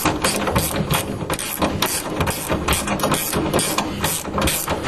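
Ratchet spanner clicking in quick, irregular strokes while nuts and bolts are done up, over a steady low hum.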